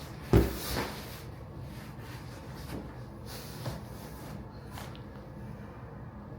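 Vinyl flooring planks being knocked and shifted into place: one heavy knock near the start with a brief scrape after it, then a few lighter knocks.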